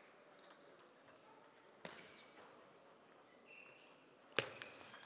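Table tennis ball clicks in a quiet hall: a faint sharp tap about two seconds in, then a loud crack near the end as play starts.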